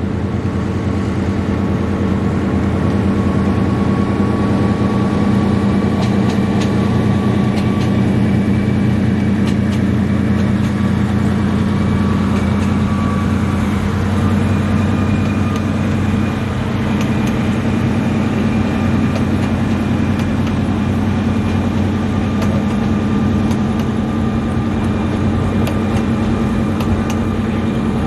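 Lyd2 narrow-gauge diesel locomotive engine running steadily as it hauls passenger cars past, with a faint whine above the engine note and scattered light clicks.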